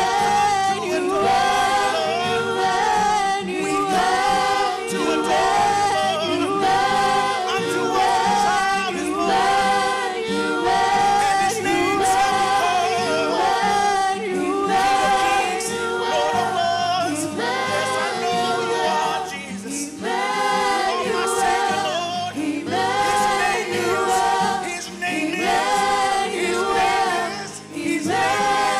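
Church worship team singing a worship song together, men's and women's voices into microphones, in sustained sung phrases.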